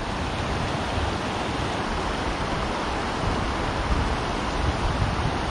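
Steady rush of river water running over rocks and through the rapids below a spillway.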